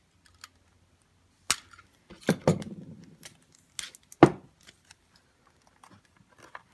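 Hand tools and objects being handled on a wooden desk: a handful of sharp knocks and clatters, the loudest about four seconds in, with faint handling noise between them.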